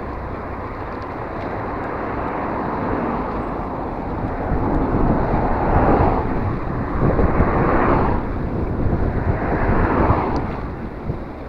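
Rushing wind and road noise from a bicycle ride, picked up by the camera's microphone. It swells three times in the second half, each swell rising and fading over a second or two.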